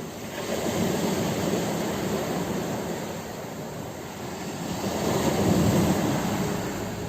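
Sea waves washing onto a shore: a steady rush of surf that swells about a second in and again, louder, around five to six seconds in.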